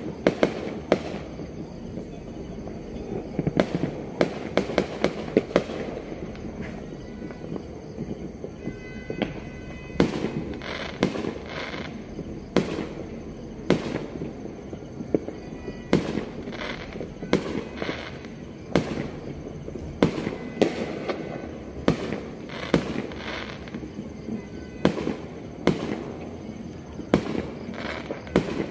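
Fireworks and firecrackers going off: irregular sharp bangs and pops, often several close together, over a continuous crackling background.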